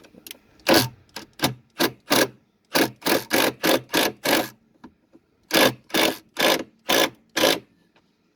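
Screws being driven into a wooden speaker box, a grinding burst with each push, about sixteen short bursts in three runs.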